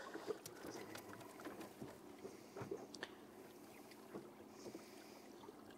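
Quiet water lapping against an inflatable boat's hull, with a few faint clicks and knocks.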